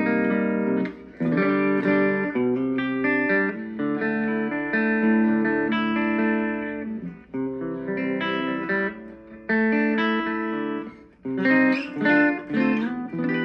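Ibanez Gio electric guitar with high-output Tokai pickups played through a small Boss Katana amp: sustained chords and notes ringing clearly, with brief breaks about a second in, around seven seconds and around eleven seconds.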